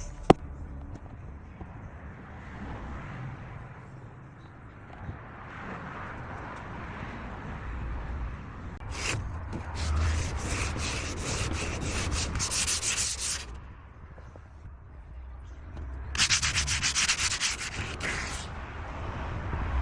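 Sanding on a door patched with wood filler, smoothing the hardened filler: two spells of quick rasping strokes, the first about nine seconds in and the second near the end. A sharp click comes just after the start.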